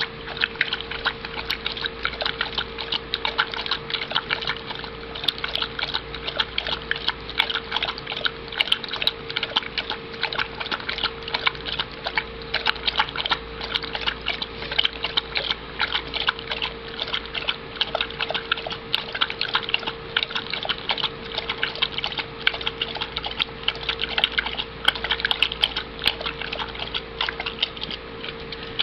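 A dog lapping water from its bowl: quick, wet laps repeating several times a second, steady throughout and stopping abruptly at the end. A steady hum sits underneath.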